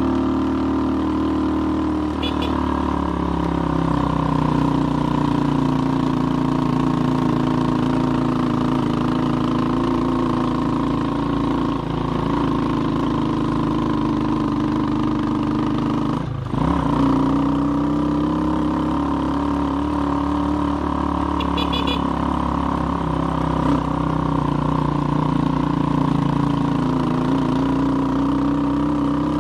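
Skygo Boss 150 motorcycle engine, fitted with a bottle pipe exhaust, a Nibbi PE26 carburettor and a pod filter, running steadily under load on a hill climb. About halfway through the engine note drops sharply for a moment, then picks back up.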